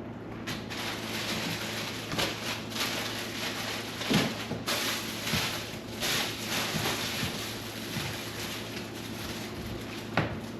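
Wet cleaning: an uneven splashing and scrubbing noise from washing the fridge with water and a cloth, broken by light knocks and clatters of fridge parts, the loudest about four seconds in.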